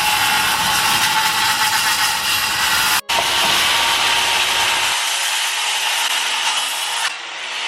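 Power saw cutting through wood, a steady harsh noise with a brief dropout about three seconds in, easing off near the end.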